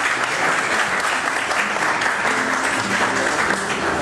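Audience applauding steadily for the performers.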